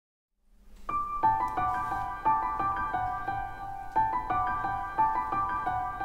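Background piano music, a gentle melody of struck notes at a steady pulse, coming in about a second in after a moment of near silence.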